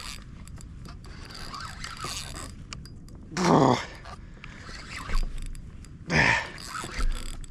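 Two short wordless shouts from a man, each falling in pitch, about three and six seconds in, over a low rumble of water and small knocks and scrapes of gear on a kayak.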